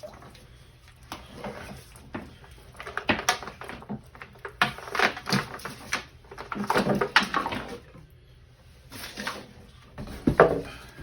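Irregular knocks, clanks and scrapes of hands and tools working the seized sewage pump loose in its pit, in clusters with short pauses between.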